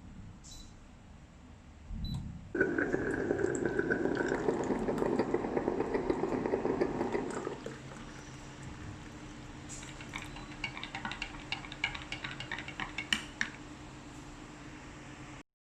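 Water running or pouring steadily for about five seconds, then stopping. Later comes a run of light clinks and clatters, like dishes or utensils being handled.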